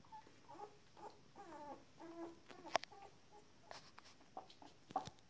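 19-day-old Shetland sheepdog puppies giving a string of short squeaky calls as they tussle, with two sharp clicks, the loudest sounds, near the middle and the end.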